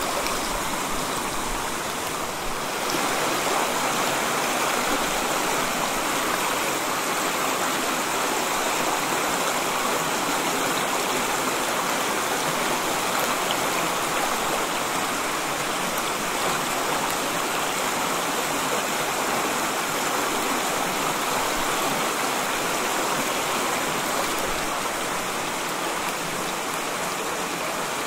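A small mountain stream running: a steady rush of flowing water, a little quieter for the first two seconds or so.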